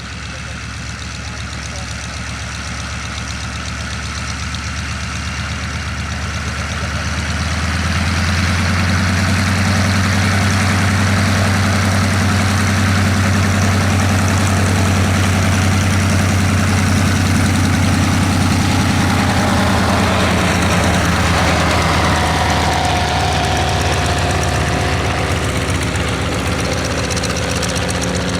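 Propeller aircraft's piston engine running with a steady low drone, growing louder over the first eight seconds and then holding; its pitch shifts slightly about twenty seconds in.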